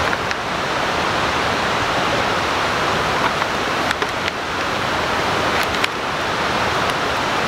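Steady rush of a creek's flowing water, with a few faint clicks over it.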